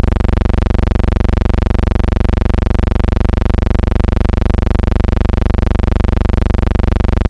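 A loud, steady buzz with many overtones and a fast flutter, starting and cutting off suddenly: an electrical hum or buzz in the soundtrack of an otherwise silent film transfer.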